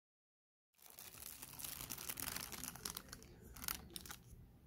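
Paper wrapping being handled, crinkling and rustling in quick irregular crackles. The sound starts suddenly about a second in.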